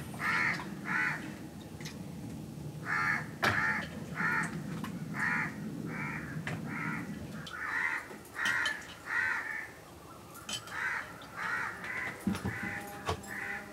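Crows cawing over and over, short harsh caws coming a couple of times a second, with a low steady rumble beneath them until about halfway through.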